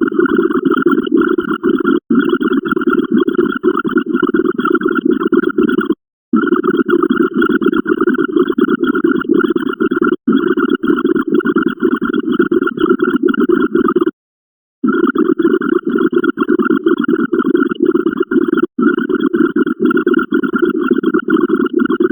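Dense, layered electronic sound effects from a binary counter, running as a loud, continuous noisy texture with a rapid flicker. It drops out briefly about every four seconds, with a longer gap every eight seconds.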